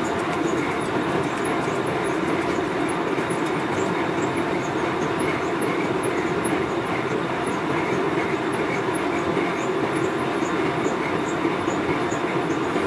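Metal lathe running, a steel wheel ring turning against the cutting tool: a steady machining noise with a light high tick repeating about twice a second.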